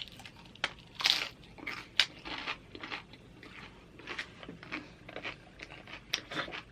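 Close-up crunching and chewing of tortilla chips as loaded nachos are eaten, a run of sharp crackles and crunches, the loudest about a second and two seconds in.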